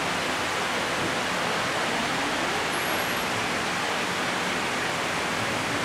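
Steady, even hiss with no speech: the background noise of the recording.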